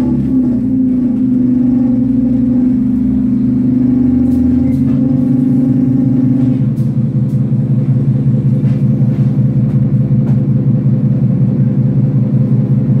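Scania OmniCity bus's diesel engine and drivetrain, heard from inside the passenger cabin: a steady low drone with a pitched whine over it. The whine stops about halfway through, leaving an evenly pulsing engine hum.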